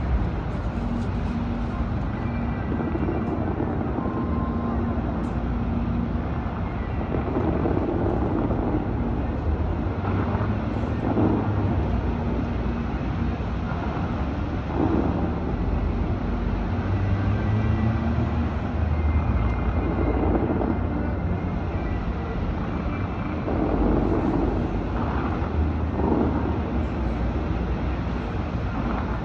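Steady outdoor city rumble with wind, swelling softly every few seconds as the Bellagio fountain's rows of water jets fire.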